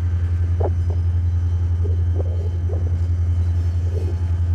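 Steady low rumble of the diesel locomotive KCS 2821 approaching slowly at the head of the weed spraying train.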